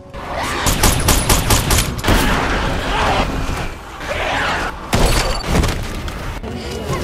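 Film-soundtrack gunfire: a rapid burst of many shots from about half a second to two seconds in. It is followed by a loud, noisy, chaotic stretch and another sudden loud hit about five seconds in.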